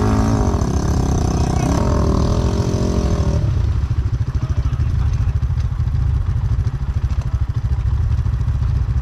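Enduro motorcycle engine running under riding, its pitch rising and falling as the throttle changes. About three and a half seconds in the engine tone drops away, leaving a dense low rumble.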